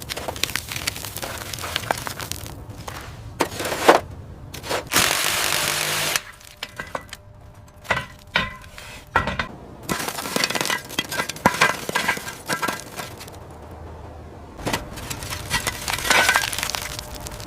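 Workshop tool work: a string of sharp knocks, cracks and scrapes, as of parts being broken loose and handled. A dense, steady hiss lasts about a second and a half, a little before the middle.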